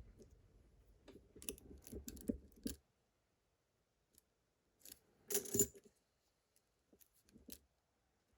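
Lock picks and tension tool clicking and jingling against a metal lock: a run of light clicks and rattles, then a louder metallic clink about five seconds in, and a few faint clicks after.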